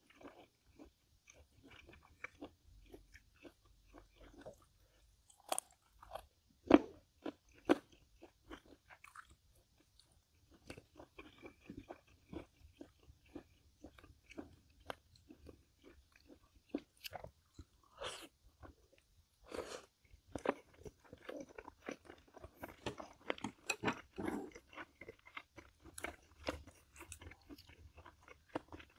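Close-miked mukbang eating: a person chewing and crunching food in irregular bites, with a few louder sharp crunches or clicks about a quarter of the way in and again past the middle.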